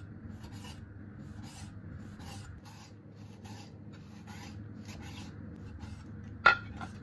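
Chinese cleaver slicing raw pork into shreds on a wooden chopping board: soft, even cutting strokes about twice a second, with one sharper knock of the blade on the board near the end, over a faint steady hum.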